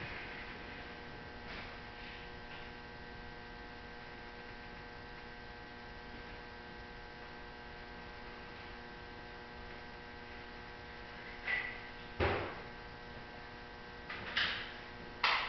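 Steady electrical hum made of several held tones, with a few sharp knocks and clicks in the last few seconds, the loudest about twelve seconds in.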